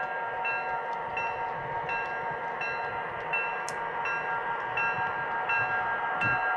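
Locomotive bell from the onboard sound system of an MTH O-scale GP9 model ringing steadily, one strike about every three-quarters of a second, over a low rumble.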